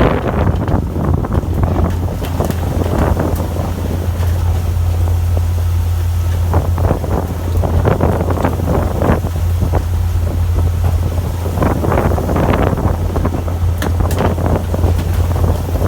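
Fishing boat's engine running with a steady low hum, under wind buffeting the microphone in irregular gusts.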